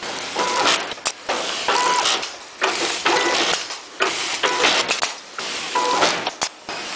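Powder-filling machine running through repeated dosing cycles, a burst of mechanical noise a little more than once a second, with a short beep on several of the cycles.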